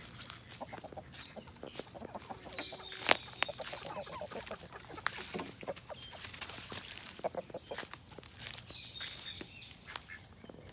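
Chickens clucking, with scattered short clicks and knocks, the sharpest about three seconds in.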